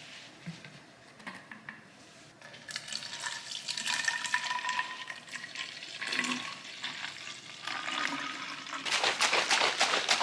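Water poured from a plastic water bottle into a plastic sports bottle to mix a pre-workout drink. Near the end the bottle is shaken, giving a quick run of sloshing knocks.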